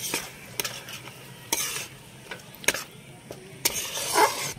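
A spatula stirring and scraping thick spice paste with yogurt in a nonstick kadai, in irregular strokes about once a second, over a light sizzle. The masala is cooking on low flame until the oil separates.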